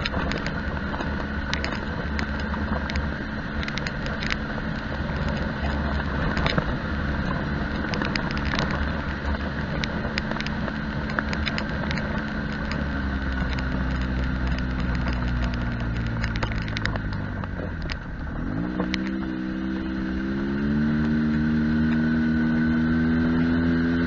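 Side-by-side UTV engine running as it drives a gravel road, with frequent ticks and rattles throughout. About 18 seconds in the engine note dips, then climbs in pitch and holds steadier and higher near the end as the machine speeds up.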